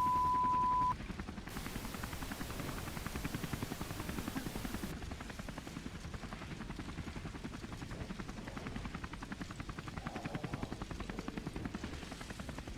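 A steady high off-air tone cuts off about a second in and gives way to the rhythmic chop of a helicopter's rotor, with a stretch of hiss from about a second and a half to five seconds in.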